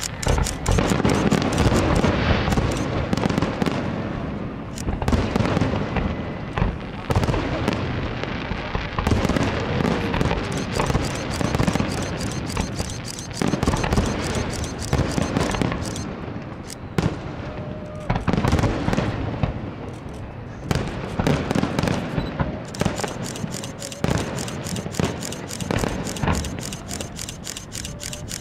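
Fireworks display: aerial shells bursting one after another with bangs and dense crackling, with no let-up.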